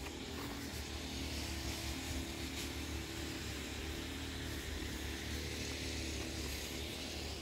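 Steady low mechanical hum with a steady hiss above it.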